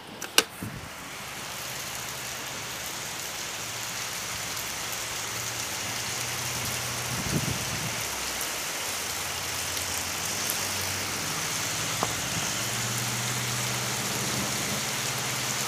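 Heavy rain pouring steadily, hissing across the whole range and growing louder over the first two seconds. A low steady hum runs underneath, and a sharp knock comes about half a second in.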